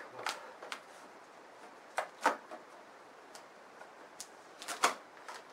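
Irregular clicks and taps of hands working packing tape off the plastic front of a portable air conditioner, with sharper clicks about two seconds in and near the end.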